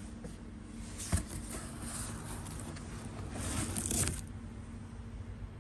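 Cardboard box and its packing rustling and scraping while being handled, loudest about three to four seconds in, with a single sharp knock about a second in. A steady low hum runs underneath.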